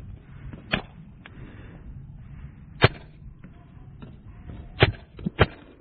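Sharp, single paintball cracks at uneven intervals during a game: five in all, the loudest about three and five seconds in, the last two close together near the end.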